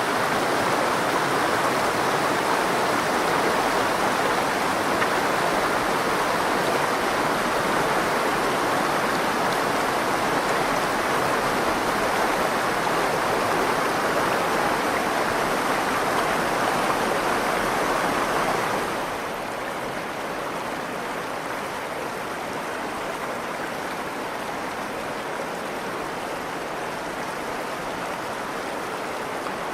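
The Virgin River flowing, a steady rush of water. About two-thirds of the way through it suddenly becomes quieter and softer.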